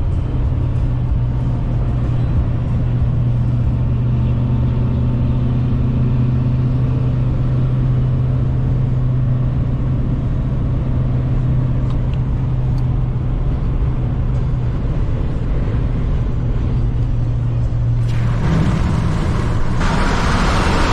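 Kenworth semi truck on the road with a steady low diesel engine drone and road noise. About 18 seconds in, the sound changes abruptly to a brighter, noisier rush.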